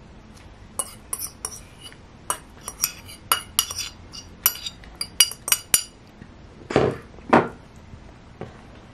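Metal fork clinking and scraping against ceramic plates as sardine filling is scooped onto a lettuce leaf: a quick run of light clinks, then two duller knocks about seven seconds in.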